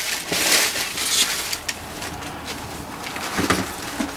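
Rustling and scraping as a sneaker is pulled out of its shoe box. The loudest rustling comes in the first second and a half, followed by lighter handling noise.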